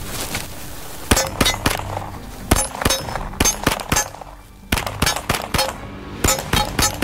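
CZ Scorpion Evo 3 S1, a 9mm semi-automatic pistol-caliber gun, fired in rapid strings of shots about three a second, about a dozen shots in all with short pauses between groups.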